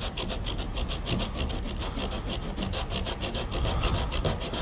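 Sandpaper on a sanding block rubbed by hand back and forth along the grain of a wooden picture frame, making quick, even scratchy strokes, several a second. The sanding is taking dried wood filler off a mitred corner.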